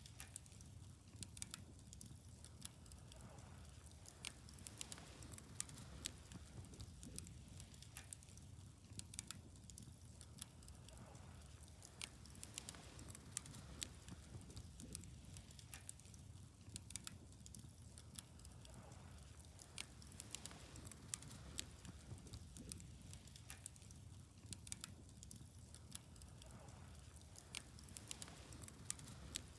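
Open fire burning, faint, with irregular crackles and small pops, several a second, over a low steady rumble.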